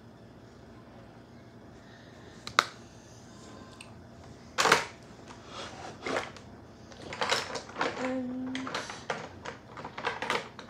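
Small hard makeup items being handled and rummaged through: a single sharp click a little over two seconds in, then from about halfway a run of irregular clicks, taps and rattles.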